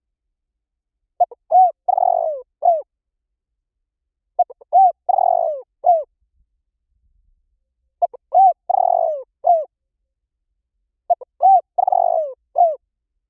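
Spotted dove cooing: the same phrase of several notes four times, about every three seconds, with silence between. This is the call used to lure spotted doves.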